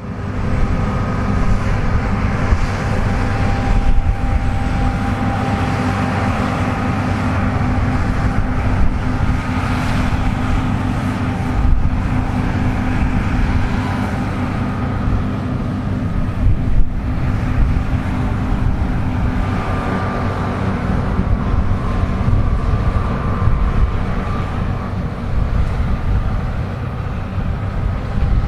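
Combine harvester running steadily while cutting wheat, a continuous machine rumble with a faint whine over it.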